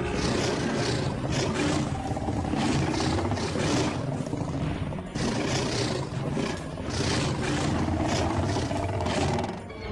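Creature growl and roar sound effects, of the kind used for cartoon alligators, running as a string of rough, noisy growls that break off and restart every second or few.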